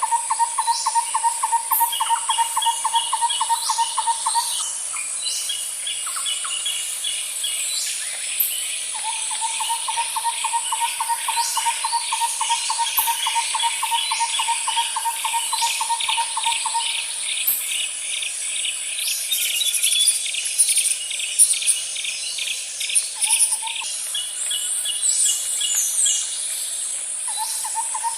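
Outdoor nature ambience of birds and insects: a rapid, even trill repeats in long phrases of several seconds, over a steady high insect buzz and scattered short bird chirps.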